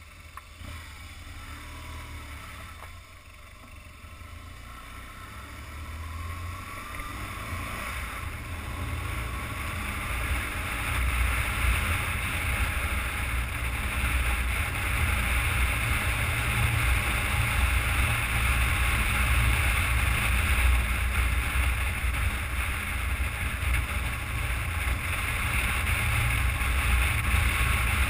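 Riding motorcycle heard from a handlebar-mounted camera: wind rushing over the microphone over a low engine rumble. It grows louder over the first ten seconds or so as the bike gathers speed, then holds steady.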